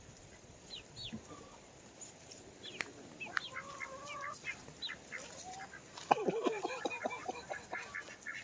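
Chickens clucking and calling with scattered short notes, then a louder run of quick repeated calls about six seconds in.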